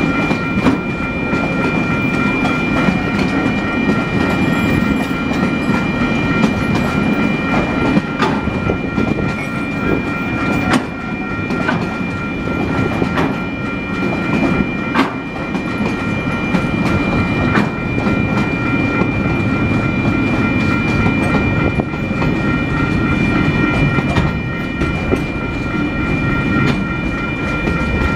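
TasRail freight train's container flat wagons rolling past, with wheels clicking over rail joints and a steady high-pitched whine over the rumble.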